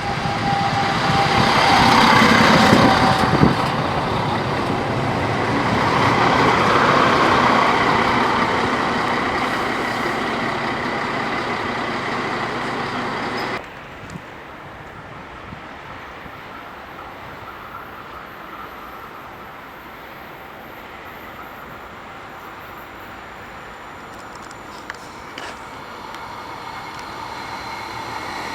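A train passing close by, swelling twice, then a sudden cut to a much quieter steady background; over the last few seconds another train can be heard approaching, growing louder.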